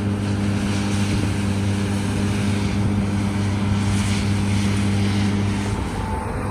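John Deere S680i combine harvester running steadily: a low, even engine hum with a hiss over it.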